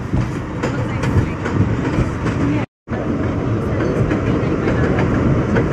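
7 line subway train running on elevated steel track, heard from the front car: a steady wheel-and-rail rumble with irregular clicks of wheels over rail joints. The sound cuts out completely for a moment a little under three seconds in.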